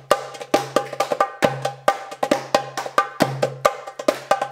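Percussion-led music with a quick, steady beat of sharp, ringing strikes over a low held bass note.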